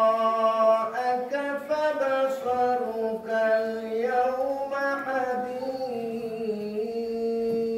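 A male qari reciting the Quran in melodic tajweed style, one voice drawing out its syllables into long ornamented notes. Near the end it holds a single note steady.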